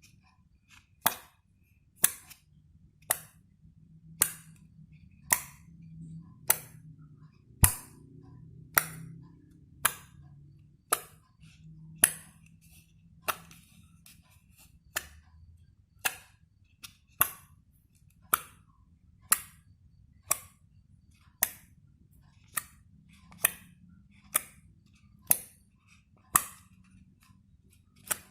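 Slime popping with sharp, crisp clicks, about one a second in a steady rhythm.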